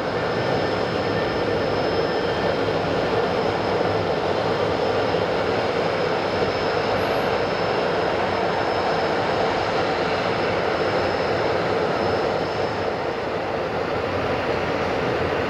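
Four Avco Lycoming ALF 502 turbofan engines of a BAe 146-200 running at taxi power: a steady rushing hum with a thin, high-pitched whine held above it.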